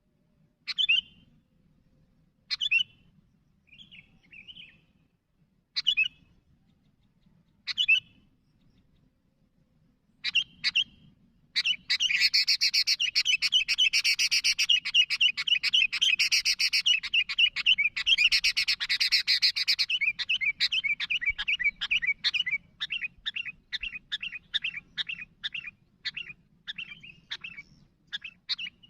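Sooty-headed bulbul (kutilang) calling: single sharp notes a couple of seconds apart, then from about twelve seconds in a long, fast run of chattering song that breaks up into quick separate notes near the end.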